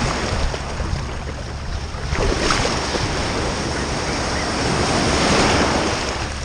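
Ocean surf washing in, with wind buffeting the microphone as a steady low rumble. The rush of water thickens about two seconds in, swells to its loudest past the middle and eases near the end.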